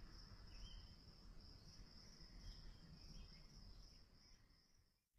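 Faint chorus of night insects, a steady high trill, fading out just before the end.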